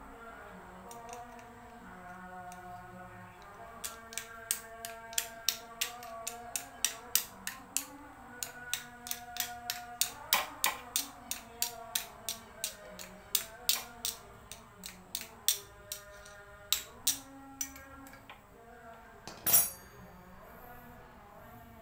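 Sharp metallic taps, two or three a second for about fourteen seconds, then one louder clank near the end: hand tools at work on a Yamaha Vixion's front brake. Music plays faintly underneath.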